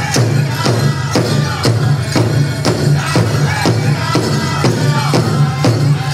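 Northern-style powwow drum group singing around a big drum, struck in an even beat about twice a second, with the singers' voices carrying a melody over it.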